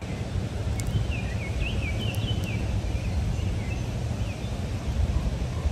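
Wind buffeting the microphone with a steady low rumble, and a bird chirping a quick run of high notes in the first half.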